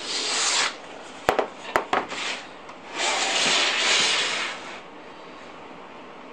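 Open metal chassis of a Cisco 3560-X switch being turned and slid around on a desk: scraping and rubbing, with two sharp knocks about a second and a half in and a longer scrape around the third and fourth seconds.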